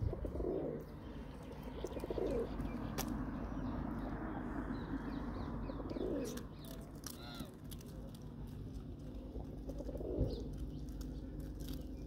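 Feral pigeons cooing: four low coos, spaced a few seconds apart.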